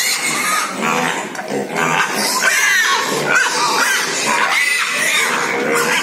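Pigs squealing and grunting, many short cries overlapping without a break.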